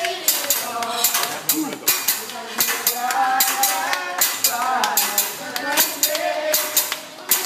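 A man singing with long held notes, over frequent sharp metallic clacks like cooking utensils struck together.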